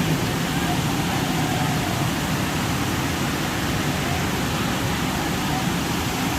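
Steady rush of a large waterfall heard close by, a loud even noise that does not change.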